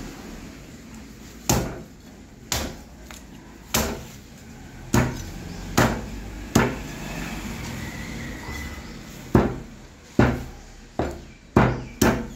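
Heavy meat cleaver chopping chicken pieces on a thick wooden log chopping block. About eleven sharp chops come at an uneven pace, in two runs with a pause of about three seconds in the middle.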